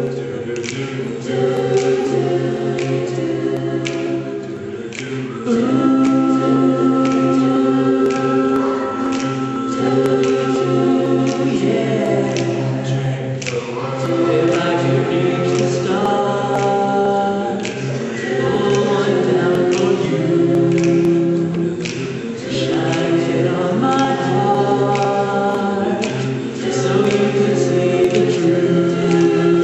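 High school mixed chorus of male and female voices singing a cappella in several parts, holding chords that change together in phrases a few seconds long.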